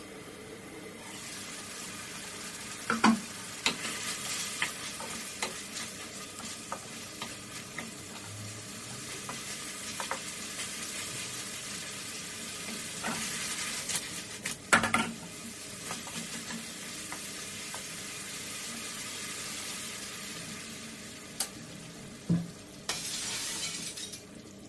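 Pork in coconut-milk sauce simmering and sizzling in a wok, a steady hiss, with a few sharp clicks and knocks against the pan.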